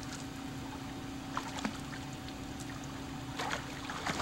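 Light splashing of pool water as a child swims and kicks, with a few soft splashes over a steady low hum.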